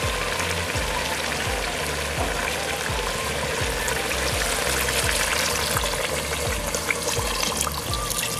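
Water poured in a steady stream into a kazan onto fried beef, carrots and chickpeas, splashing and trickling as it fills: the water that makes the zirvak, the broth base of plov.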